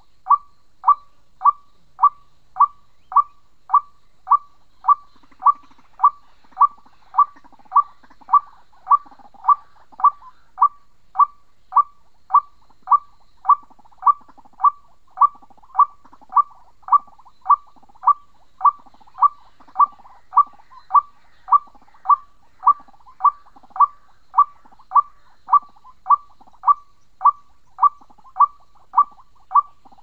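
White-breasted waterhen (ruak-ruak) call: a single short hooting note repeated steadily and monotonously, nearly two a second.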